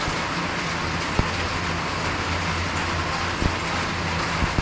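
Steady rain on the roof, an even hiss, with a low hum underneath and a few single sharp ticks.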